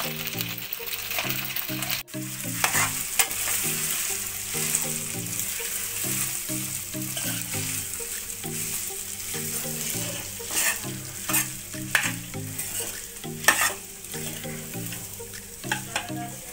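Leftover cooked rice sizzling in hot oil with fried onions, cumin and green chilli in a kadai, while a spatula stirs and scrapes it against the pan with repeated sharp scrapes and knocks. A soft background tune plays underneath.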